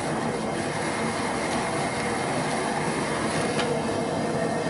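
Propane turkey-fryer burner running with a steady roar of gas flame, with a faint knock near the end as the aluminum stock pot is set on it.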